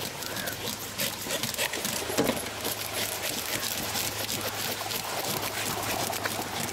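Knives scraping over whole red pomfret on a steel tray as the fish are cleaned: a dense, continuous run of quick scratchy scrapes and clicks.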